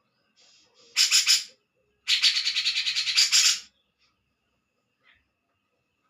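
A cak jenggot songbird giving two bursts of rapid, harsh chattering notes: a short burst about a second in, then a longer one of about a second and a half.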